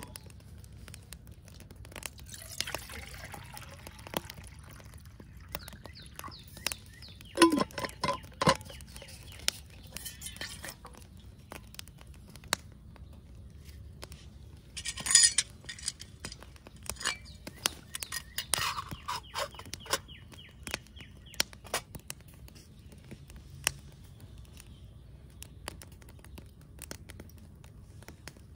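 Water poured into a metal camping pot, then the pot handled by its wire bail and set on a small wood-burning stove, with metal clinks and clanks. A wood fire crackles in the background.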